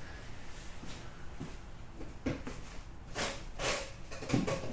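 Light clicks, knocks and scraping of plastic RC car parts being handled and pulled apart, as suspension arms are slid out of the chassis. A few of the knocks fall in the second half, with a short scrape just past the middle.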